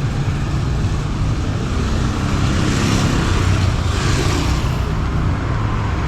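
Street traffic: vehicle engines running with a steady low rumble, and two swells of passing-vehicle noise around three and four seconds in.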